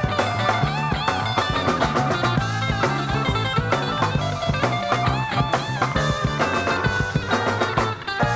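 Rock-and-roll band playing an instrumental break: guitar lead with bending notes over bass and a steady drum beat.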